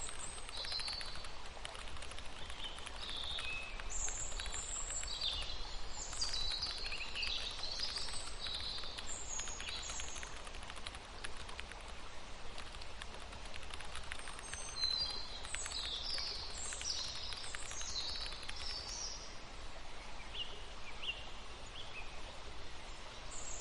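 Small birds chirping and twittering over a steady outdoor background hiss. The chirps come in busy clusters about four seconds in and again around fifteen seconds in, with a few fainter calls near the end.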